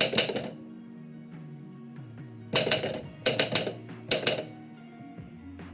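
Typewriter keys struck in four quick bursts of clicks, with pauses between them, over background music with held tones.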